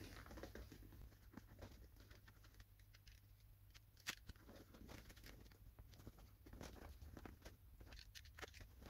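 Faint handling noises: small clicks and rustles as a utility knife blade cuts at the leatherette of a headrest cover, with one sharper click about four seconds in.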